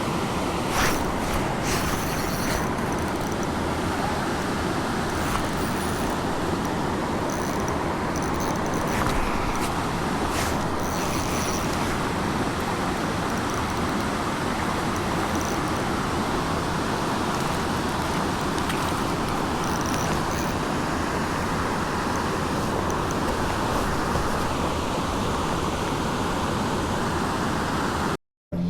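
Steady rushing of a trout stream's flowing water, with a few faint clicks over it; it cuts off suddenly near the end.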